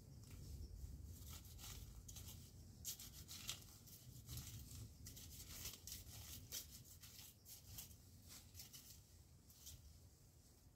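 Faint, irregular rustling and scraping of plants and soil as someone works a garden bed by hand, thinning out near the end, over a low steady rumble.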